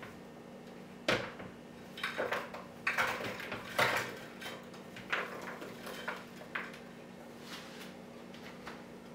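Berries being tipped and shaken from a glass bowl into a blender jar: a sharp knock of glass on the jar about a second in, then a run of irregular clattering and rattling as the fruit drops in, dying away after six or seven seconds.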